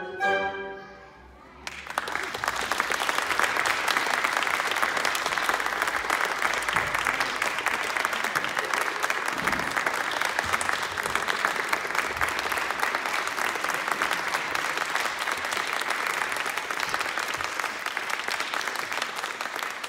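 A woodwind quintet's final chord ends about a second and a half in. Then an audience breaks into steady applause.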